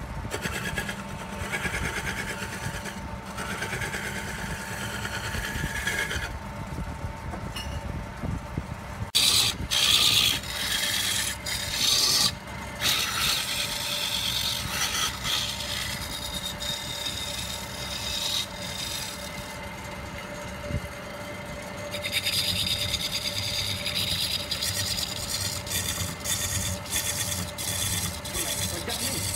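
Wood lathe turning a green log while a hand-held gouge cuts it: the tool scrapes and shaves the spinning wood in uneven passes over the steady hum of the lathe's electric motor. The cutting is loudest about a third of the way in.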